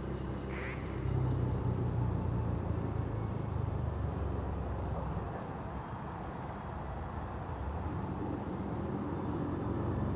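Insects chirping outdoors: short, high chirps repeating roughly once a second over the steady low rumble of an idling vehicle.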